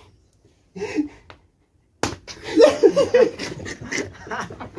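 Young men laughing and yelling while they play-wrestle, with slaps and knocks from the scuffle. After a short silence, the laughter breaks out loudly about two seconds in.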